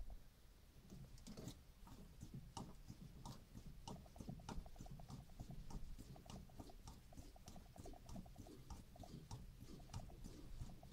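GAZ-24 Volga engine running just after a cold start at −19 °C, heard faintly as a fast, uneven run of light ticks over a low rumble.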